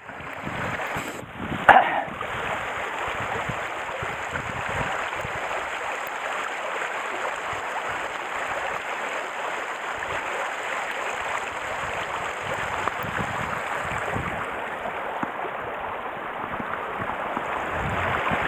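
Shallow snowmelt stream running over stones, a steady rushing of water, with one brief louder burst about two seconds in.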